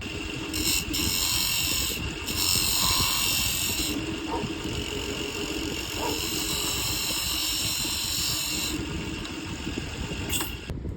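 Wood lathe running with a steady hum, and a loud hiss that comes and goes in stretches as the spinning wood is worked.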